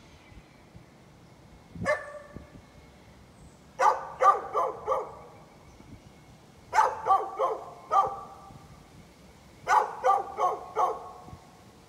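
Dog barking: a single bark, then volleys of four or five quick barks, about one volley every three seconds.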